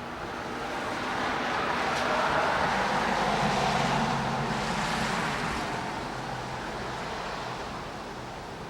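A vehicle passing by: a rushing sound with a low engine hum that swells to a peak a few seconds in, then fades away.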